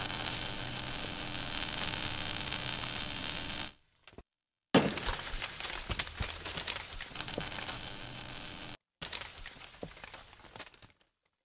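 Logo-intro sound effects: a loud fizzing, crackling hiss for about four seconds, a short break, then a sudden hit followed by crackling clicks that grow fainter and die out about a second before the end.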